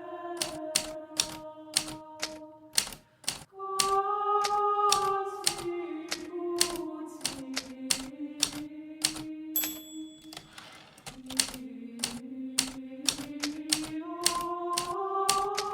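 Hermes Baby portable typewriter being typed on at a steady pace, about two to three keystrokes a second, with a short pause about three seconds in. Soft, slow background music plays underneath.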